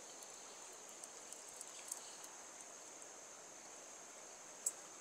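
Faint, steady high insect chirring over quiet outdoor background, with a few soft ticks and one sharper click near the end.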